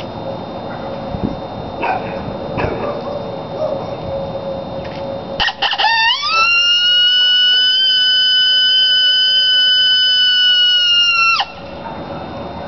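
NCK Special cow horn coyote howler blown in one long howl: the pitch rises over about a second, holds steady for about five seconds, then cuts off suddenly. Before the howl there is only steady background noise with a few faint clicks.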